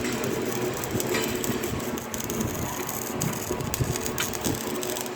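MIG welding arc crackling steadily, with a steady hum underneath.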